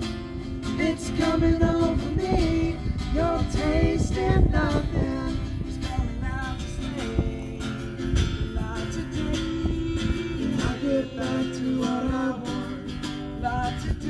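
Live acoustic performance: an acoustic guitar strumming and a mandolin playing along while men sing.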